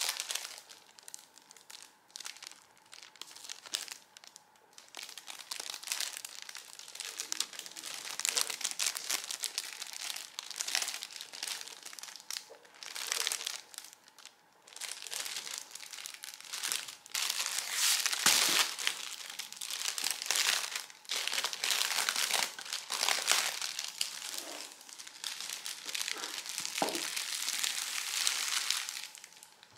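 Clear plastic polybag crinkling and crackling as it is handled, opened and a folded T-shirt slid out of it, in uneven stretches with short pauses, loudest a little past halfway.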